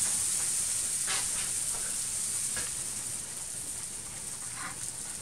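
Freshly poured pancake batter sizzling in a hot silver dollar pancake pan, a steady hiss that slowly fades.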